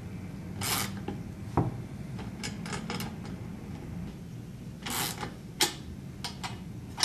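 Metal parts of a satellite dish roof mount scraping and clinking as a carriage bolt is seated and its nut put on by hand, a string of short irregular scrapes and clicks.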